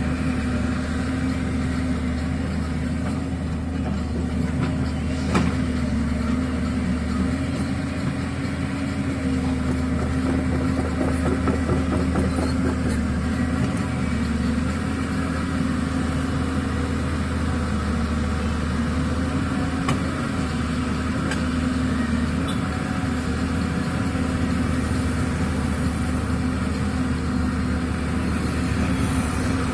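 Diesel engine of a JCB 3DX backhoe loader running steadily, its pitch wavering slightly, with one sharp click about five seconds in.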